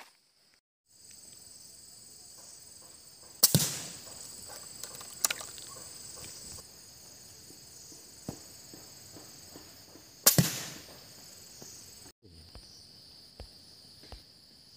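Two shots from a Diana Outlaw .177 PCP air rifle, sharp cracks about seven seconds apart, with a fainter click between them. A steady high drone of insects runs underneath.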